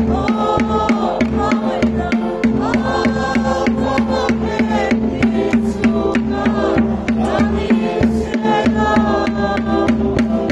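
Hymn singing with a steady, quick drumbeat of about three to four strokes a second keeping time for a circle dance, over a held low note.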